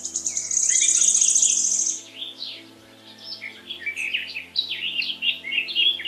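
Forest birds chirping and calling in quick, varied notes. A loud, fast, high-pitched trill comes about half a second to two seconds in. Soft sustained background music lies underneath.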